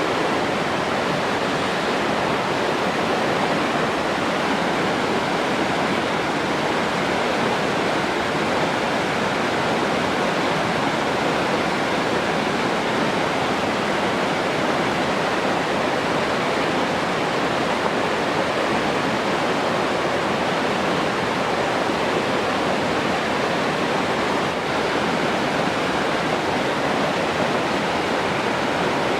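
Flowing water rushing steadily, an even, unbroken hiss like a waterfall or fast stream, with no change from start to finish.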